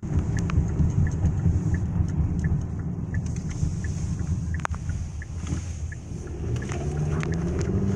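Steady low rumble of a moving vehicle, with scattered light ticks and one sharp click about halfway through.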